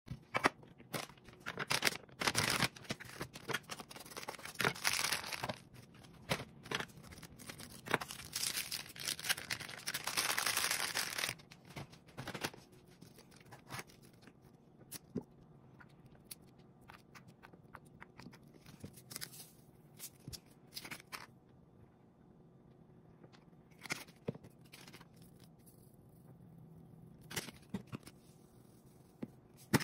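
Kitchen food-prep handling noises: for about the first twelve seconds, rustling and tearing sounds; after that, scattered light clicks and taps.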